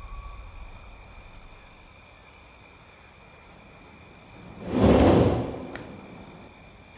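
A single swelling whoosh, about a second long, that rises and falls away about five seconds in, over a quiet steady hiss. A held whistled note fades out at the very start.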